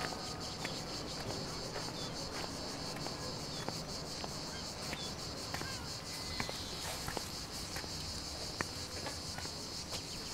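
Steady high-pitched insect chorus, a dense rapid buzzing, with a few faint ticks and rustles over it.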